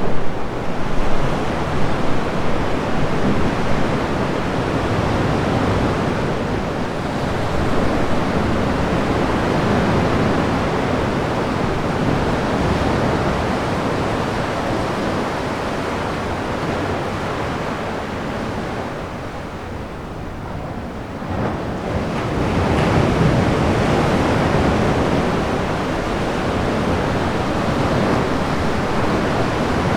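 Sea waves washing into a sea cave, a continuous rushing surf. It eases off briefly about two-thirds of the way through, then surges back as the next wave comes in.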